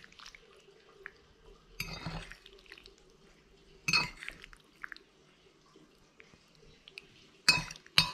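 A metal fork clinking and scraping against a ceramic bowl as pasta is picked up: a few short clinks roughly two seconds apart, with quiet between.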